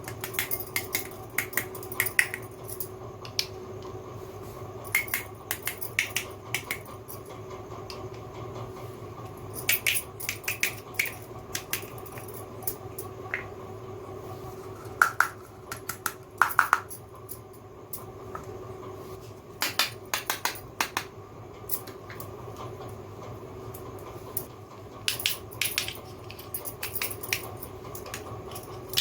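Miniature toy kitchen set pieces clicking and clattering as they are handled, in short groups of taps every few seconds. A couple of taps near the middle ring briefly, like small dishes knocked together. A faint steady hum runs underneath.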